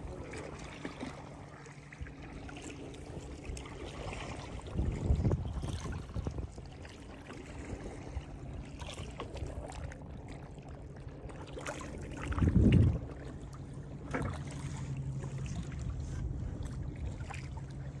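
Boat out on the river: water noise under a steady low hum, with two louder low rumbles about five and thirteen seconds in.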